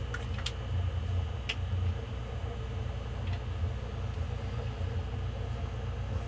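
A steady low hum with a few light clicks and taps as a crappie is handled on a plastic bump board for measuring.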